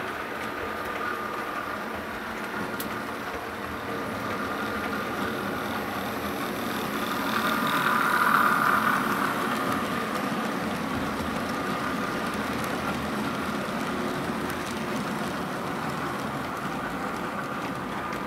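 OO gauge model train with a rake of hopper wagons running past on the track, a steady rolling rumble of small wheels on rail with a faint motor hum. It grows loudest about eight seconds in as the wagons pass closest, then eases off.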